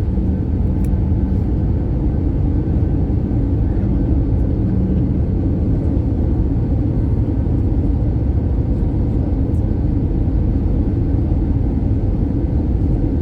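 Airliner cabin noise on the approach: a steady low rumble of engines and rushing air, unchanging throughout.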